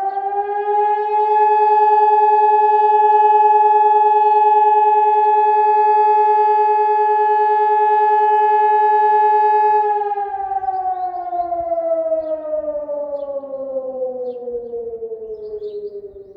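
ECI siren sounding a fire-brigade call-out alarm: a steady wailing tone that swells in during the first second, holds for about ten seconds, then slides down in pitch as it winds down.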